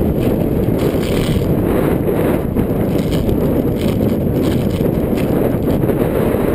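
Steady rumble of wind buffeting the microphone of a handlebar-mounted camera on a road bike riding at speed.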